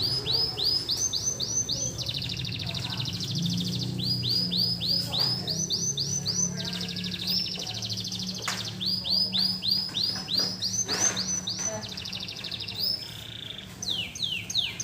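Domestic canary singing a long, continuous song of rapid repeated trills and rolls, high-pitched and changing rhythm every second or two; the bird is back in full song after its moult.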